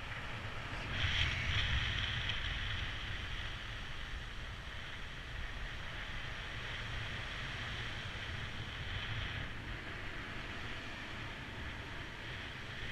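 Wind buffeting the microphone of a paraglider's head-mounted camera in flight: a steady low rumble and rush of airflow, with a louder gust about a second in.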